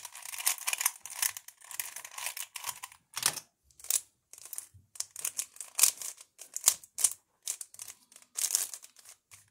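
3x3 Rubik's cubes being scrambled by hand: the plastic layers turning with rapid clicking and clacking. The clicks run densely for about the first three seconds, then come as separate clicks and short quick runs.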